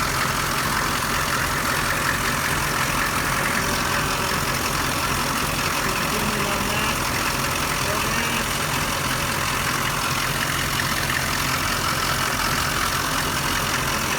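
A steady engine-like hum, running evenly and unchanged, with a constant low drone underneath.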